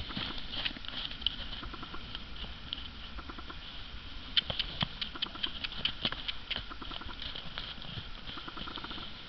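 Hoofbeats of a two-year-old double cream quarter horse stallion moving fast in circles over snow-dusted ground, a run of short strikes that comes thickest about halfway through.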